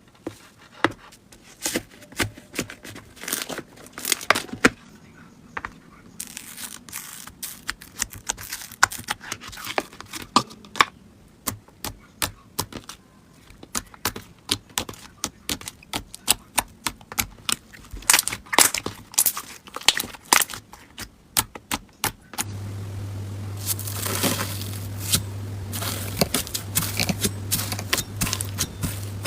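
Slime being squeezed and worked by hand, giving a dense run of sharp crackles and pops. About two-thirds of the way through a steady low hum comes in under softer, smearier squishing and scraping.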